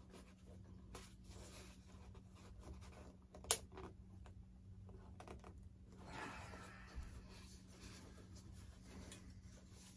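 Faint handling noises as a glued part of an RC model airplane is worked loose: scattered light clicks, one sharp click about three and a half seconds in, and a short scraping rustle around six seconds in, over a faint steady hum.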